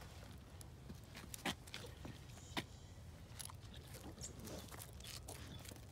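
Scattered light clicks and taps from a dog moving about on a chain leash over concrete, with two sharper taps about one and a half and two and a half seconds in.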